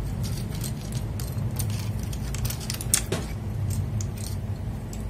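Loose PBT keycaps clicking and clattering against each other as they are picked through and set aside, a sharper clack about three seconds in.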